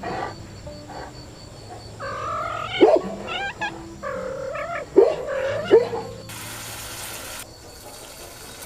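An animal's cries: a run of short pitched calls that bend up and down, three of them sharply louder, followed by a brief hiss near the end.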